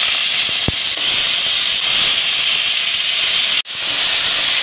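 Sliced onions sizzling in hot oil in a metal kadai, a loud steady hiss. It drops out for an instant about three and a half seconds in, then the sizzling resumes as the onions, tomato and green chilli are stirred with a spatula.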